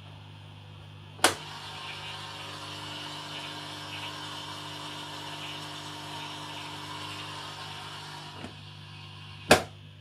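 Indesit dishwasher door latch clicking open about a second in, a steady hiss while the door stands open, then the door pushed shut with a sharp latch click near the end.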